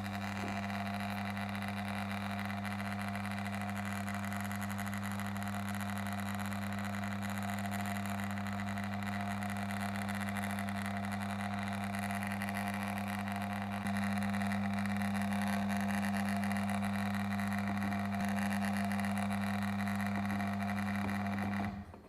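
Electric motor running with a steady hum and a fainter whine above it. It gets a little louder about two-thirds of the way through, then stops abruptly near the end. The motor has a noise issue.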